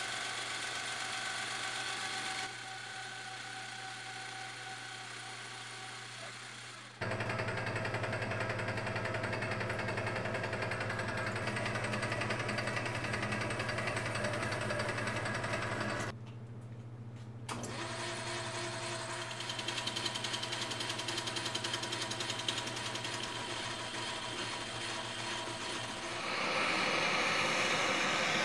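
Metal lathe running with a steady motor hum while it turns and then drills a steel sleeve, in several short clips joined by abrupt cuts. Near the end a propane torch hisses.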